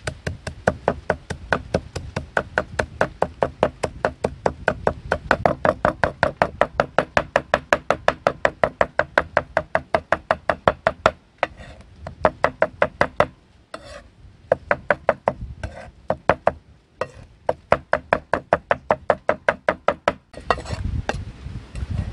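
Cleaver chopping fast on a round wooden chopping board, mincing snail meat with dried red chillies into a paste. The chops come as steady sharp knocks, about five a second, with a few short pauses.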